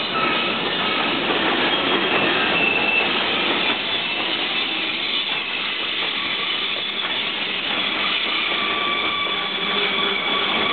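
Freight train's container wagons rolling past, with a steady rumble of wheels on rail, high thin steel-on-steel squeals that come and go, and a few clacks.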